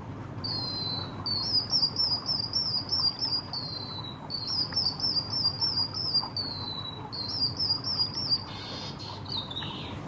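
White-headed munia (emprit kaji) singing a canary-like song: a string of high, quickly warbling trilled phrases, followed near the end by a rougher falling note.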